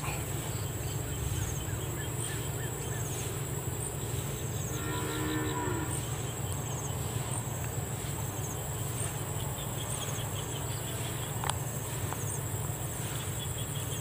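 Rural outdoor background: a steady low drone under a high, evenly pulsing insect trill, with a short pitched call about five seconds in and a single sharp click near the end.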